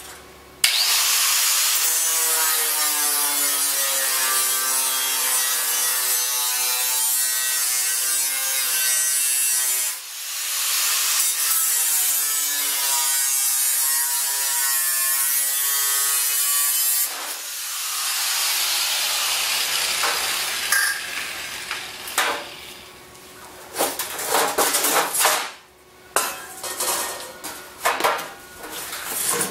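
Electric angle grinder cutting through sheet steel, a loud steady whine whose pitch sags and recovers as the cut loads the motor, easing off briefly about ten seconds in and again a few seconds later before stopping. Near the end, knocks and rattles of the cut sheet metal being moved.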